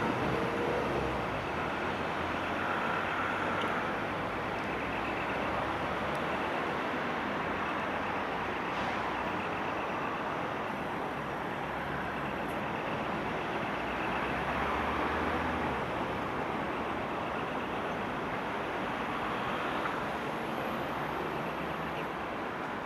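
Steady background rumble of distant road traffic, even and unbroken throughout.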